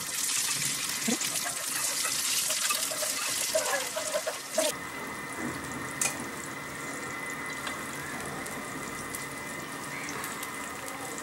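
Kuzhi paniyaram batter sizzling and bubbling in hot oil in the cups of a paniyaram pan. The sizzle is louder at first and drops suddenly a little before halfway. A single sharp click comes about six seconds in.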